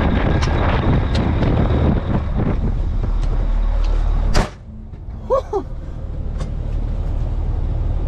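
Diesel wheel loader running with wind noise outside, then the cab door slams shut about four seconds in. After the slam the engine and wind are heard much quieter, muffled from inside the closed cab.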